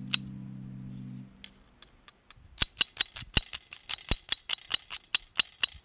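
Background music runs out about a second in. Then a knife slices through red onion and strikes the stone slab beneath, a quick, uneven run of sharp clicks, about three to five a second.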